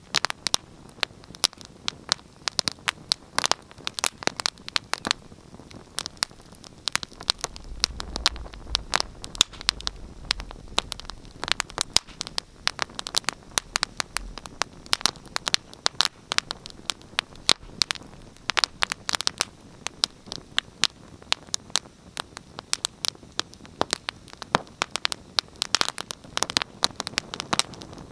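Wood fire in a fireplace crackling steadily, with frequent sharp pops and snaps over a soft hiss. A brief low rumble comes in about eight seconds in.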